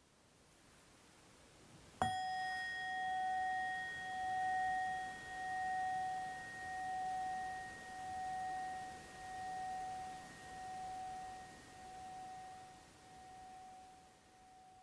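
A single struck metal bell tone about two seconds in, ringing on and fading slowly over some twelve seconds with a steady pulsing waver in its loudness.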